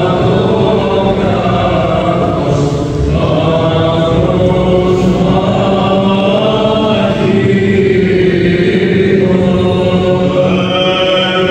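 Greek Orthodox Byzantine chant by men's voices, a slow melody of long held notes over a low note sustained steadily beneath it, in a reverberant church.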